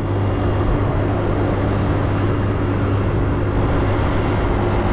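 Small motor scooter's engine running at a steady drone while climbing a long uphill grade, with a constant rush of wind and road noise.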